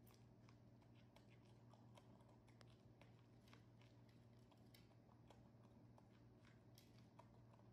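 Faint, irregular little clicks and crunches of baby monkeys gnawing kernels off corn cobs and chewing, over a steady low hum.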